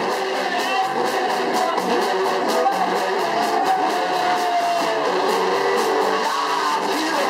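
Live band playing: electric guitar over a steady drum beat, with one long sliding note around the middle.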